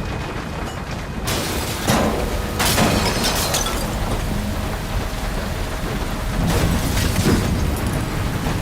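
Strong storm wind buffeting the microphone, a heavy low rumble throughout with several sharp gusts, about five of them.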